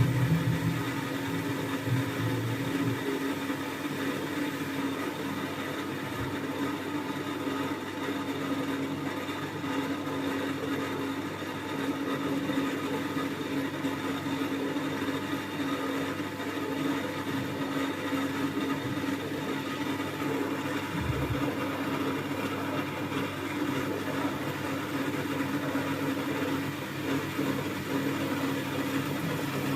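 Thomson washing machine running mid-cycle: a steady motor hum with the drum turning, and a lower rumble that fades about three seconds in.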